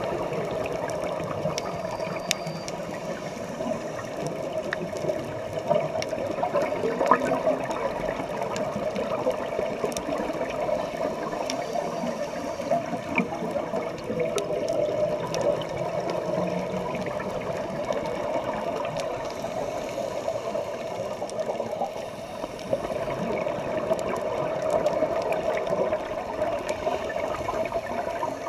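Underwater scuba sounds: regulator breathing and exhaled bubbles gurgling, a steady watery rush that swells and eases, with a few faint clicks.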